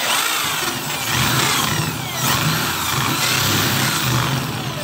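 Cordless drill running with its bit pressed into fibre cement (Hardiflex) board, countersinking a recess for a blind rivet head. The motor speed rises and falls as the bit cuts.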